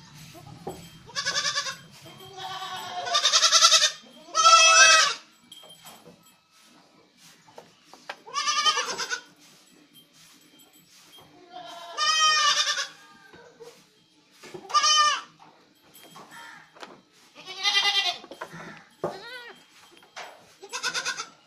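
Osmanabadi goats bleating: about eight separate quavering bleats of differing pitch, coming from several animals at irregular intervals, with quieter gaps between.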